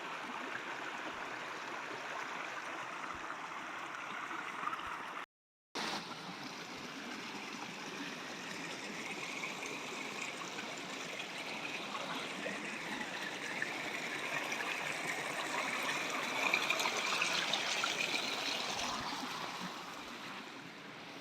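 Forest river flowing and gurgling steadily. It cuts out completely for about half a second around five seconds in, grows somewhat louder in the second half, then eases off near the end.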